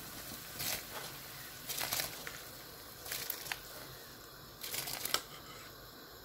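Washed, soaked rice scraped with a metal spoon out of a steel bowl into a pot of boiling water: four short scraping, rustling bursts about a second apart.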